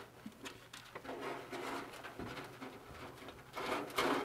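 Light-kit wires taped to a stiff guide cable being fed and pulled through a hole in the hood's inner frame: faint, irregular rubbing and scraping with a few soft taps.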